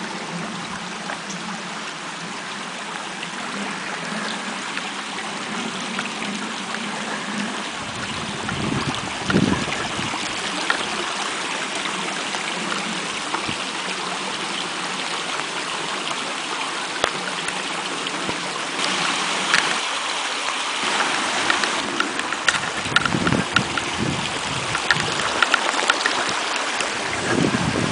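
Muddy rainwater runoff rushing down a lane in a shallow sheet, a steady rush of flowing water. About two-thirds of the way in it gets louder and more splashy.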